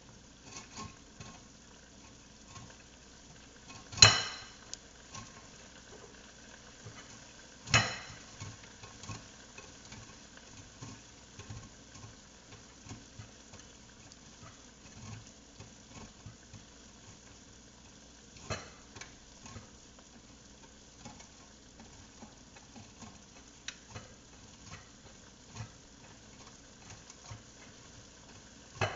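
A block of fontina cheese being shredded by hand: a run of small, irregular scraping strokes, with two sharp knocks about four and eight seconds in and a lighter one later.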